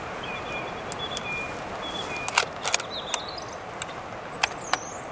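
Steady rushing of a river, with thin high birdsong notes and chirps over it. A few sharp clicks and taps of handled gear stand out, the loudest about halfway through and two more near the end.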